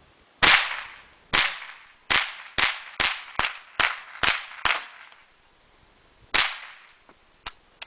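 Small-calibre rifle fired ten times: nine sharp shots in quick succession, about two to three a second, then a pause and a tenth shot, followed by a few faint clicks.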